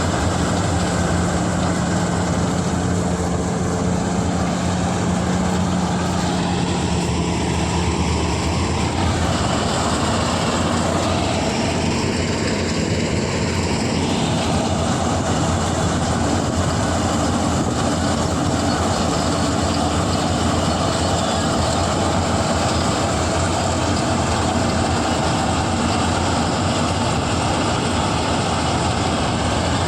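Kartar 4000 combine harvester running steadily under load, its engine hum and threshing machinery making a constant dense mechanical drone.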